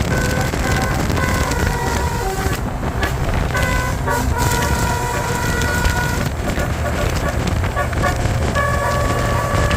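Tour bus's basuri (telolet) horn, a multi-tone musical horn, tooting a run of short notes at changing pitches over the low rumble of the running bus.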